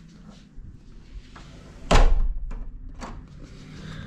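Hotel room door swinging shut with one heavy thud about two seconds in, followed by a few lighter clicks.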